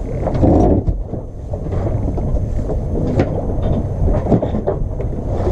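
Wind rumbling on the microphone aboard a sailboat under way, with scattered short knocks.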